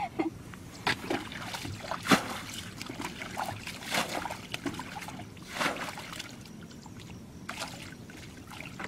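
Shallow muddy water splashing and sloshing in irregular bursts as people wade through it, the sharpest splash about two seconds in.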